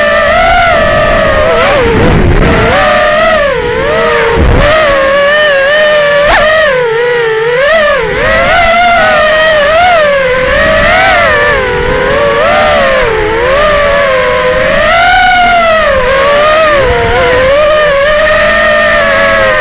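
FPV quadcopter's brushless motors and propellers whining, the pitch rising and falling continually with the throttle.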